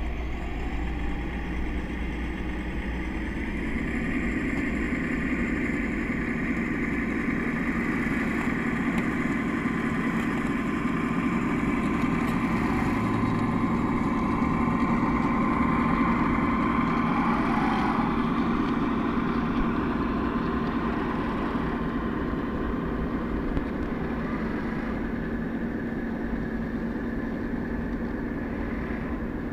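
Self-built 1:8 scale hydraulic RC John Deere 9560R running, its motors and hydraulic pump giving a steady mechanical whine that grows louder as the 70 kg model passes close by and then fades a little as it drives away.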